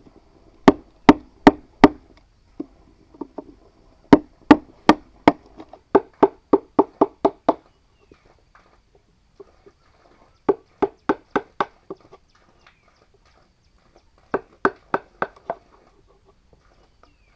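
Bursts of sharp knocks from a tool striking bamboo or wood, four to eight blows per burst at two to five a second, with short pauses between bursts.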